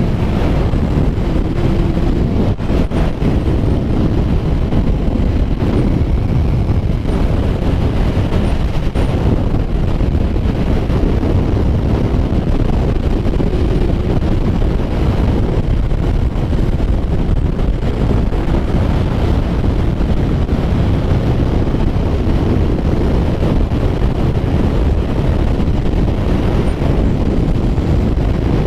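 Steady, heavy wind noise on the microphone at riding speed, over the running of a Kawasaki Ninja 1000's inline-four engine.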